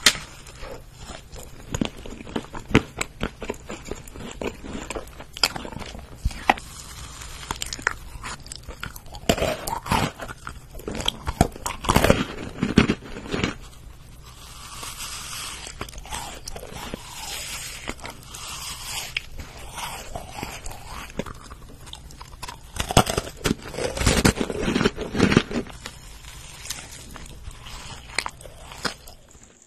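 Close-miked eating of filled macarons: crisp shells crunching with each bite, with chewing and wet mouth sounds in between. One of the macarons is rolled in crunchy fruity cereal. Many sharp crunch clicks, with a few clusters of louder crunching.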